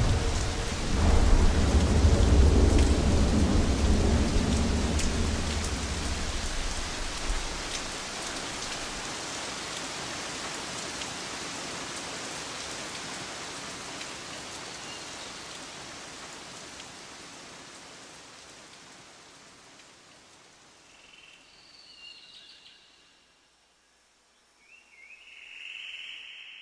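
Rain falling with a long, deep rumble of thunder over the first several seconds, then the rain fading out gradually. A few faint high chirps sound near the end.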